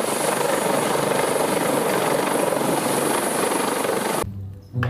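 Helicopter lifting off, its rotor and engine noise a steady, loud rush that cuts off abruptly about four seconds in.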